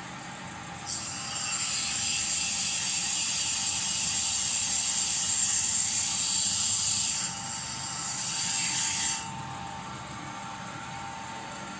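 Homemade lapidary grinding machine running with a steady whine while a fluorite stone is pressed against the wheel, giving a loud high hiss. The hiss starts about a second in, eases off for a moment, returns briefly and stops a few seconds before the end, leaving the machine running.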